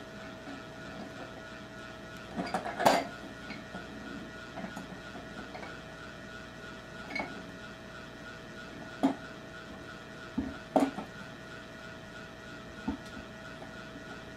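Metal clinks and knocks of a wrench working a brass pipe fitting as it is tightened: a short clatter about three seconds in, the loudest, then a few single knocks spread over the rest. A steady hum runs underneath.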